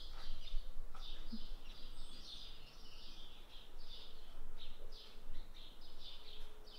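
Small birds chirping over and over, a steady run of short high chirps, a few each second.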